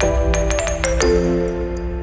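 Background music: sustained synth chords that change about once a second, with a quick run of bright bell-like notes in the first second.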